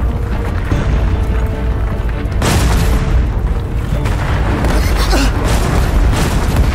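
Volcanic eruption sound effect: a continuous deep rumble with several sharp blasts, the strongest about two and a half seconds in, under dramatic background music.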